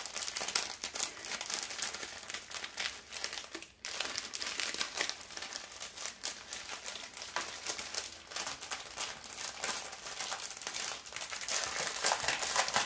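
Small clear plastic bags of diamond-painting drills crinkling and rustling as they are handled and unrolled from a bundle, with a brief pause about four seconds in.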